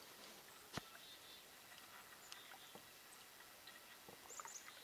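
Near silence: faint outdoor quiet with one sharp click about a second in, a few faint ticks, and faint high chirps near the end.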